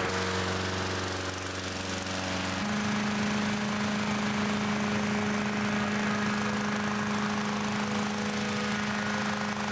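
Petrol-engine inflator fans running steadily while cold-inflating hot air balloon envelopes. The hum changes to a slightly higher, steady pitch about two and a half seconds in.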